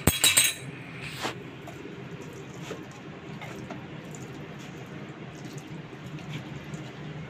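A sharp clatter at the start and a knock about a second in, then faint wet squishing of hands rubbing spice paste into a raw whole chicken over a low steady hum.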